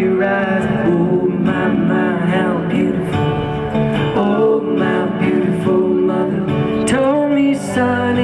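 Live band music: a song carried by strummed acoustic guitar, with drums and percussion underneath.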